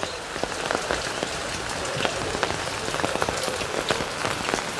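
Steady rain falling, with many separate drops hitting close by.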